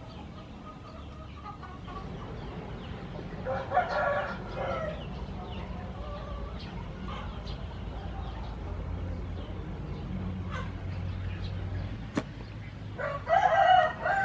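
A rooster crowing twice, about four seconds in and again near the end, over light clicks of a knife cutting into a pumpkin's rind.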